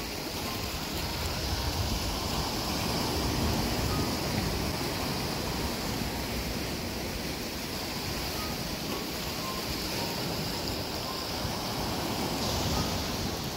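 Sea surf washing against a rocky shore, a steady rushing noise.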